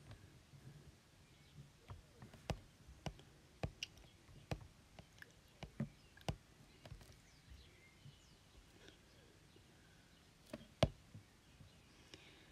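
Light taps and clicks of fingertips on a tablet's glass touchscreen, scattered irregularly, with one louder tap a couple of seconds before the end.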